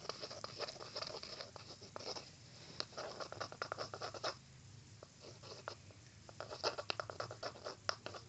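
Shampoo and body wash being stirred in a bowl with a utensil: a run of quick, irregular sticky clicks and scrapes, thinning out briefly midway before picking up again.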